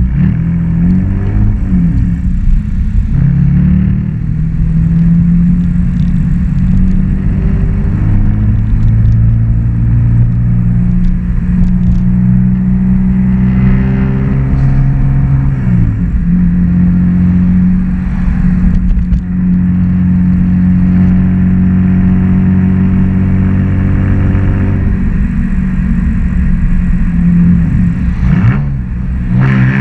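BMW E46 325Ci's 2.5-litre inline-six engine pulling on the road. It holds steady revs for long stretches and rises and falls in pitch a few times as it goes through the revs and gears.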